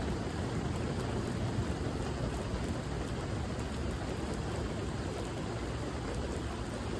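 Steady rain falling, an even hiss of drops with a deep low rumble underneath.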